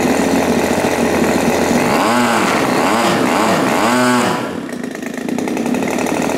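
Turnigy TP31-T 31cc twin-cylinder boxer gas engine running, on its first run. It runs steadily, is revved up and down three times in quick succession about two seconds in, then drops back to a lower, quieter idle before settling into a steady run again.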